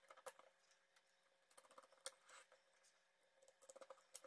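Near silence, with three very faint short clicks of small hardware being handled during assembly.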